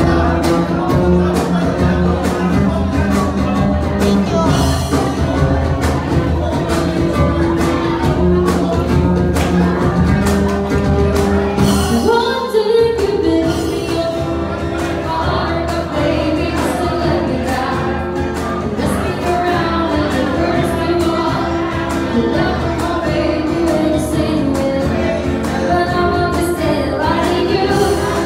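Live band music: acoustic guitar with a voice singing into a microphone, with a brief break about twelve seconds in.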